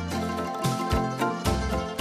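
Instrumental background music with a steady beat.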